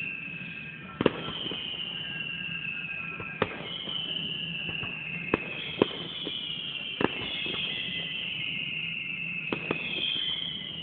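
Fireworks going off in a string of sharp bangs every second or two. Each bang is followed by a high whistle that falls in pitch, and the whistles overlap one another.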